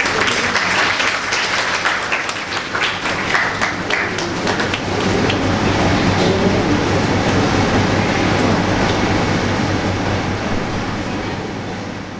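Audience applauding, dense clapping at first and then a steadier patter, over a steady low electrical hum from the hall's sound system; it fades out near the end.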